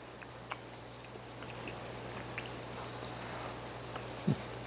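A man quietly chewing a mouthful of pork and buckwheat porridge, with scattered small mouth and spoon clicks and a short low "mm" near the end, over a steady low hum.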